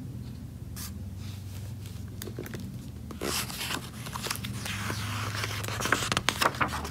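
Paper rustling and scraping as a hand brushes over and handles the pages of a picture book, with a few small clicks, getting busier from about halfway through, over a steady low hum.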